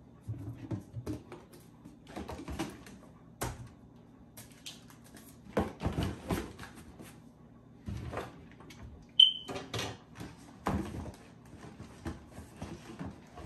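Plastic bottles of household cleaners being set into a cardboard box: irregular knocks and clunks of plastic on cardboard and bottle against bottle. A sharp click with a brief squeak about nine seconds in is the loudest.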